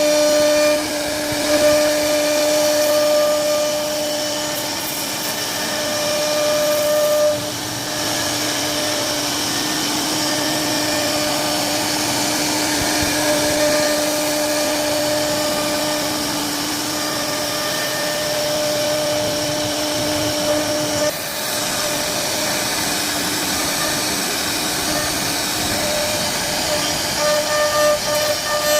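CNC router carving a wooden door: the spindle runs with a steady whine over the hiss of the cutter in the wood. The whine's main tone fades out about three-quarters of the way through while the cutting noise goes on.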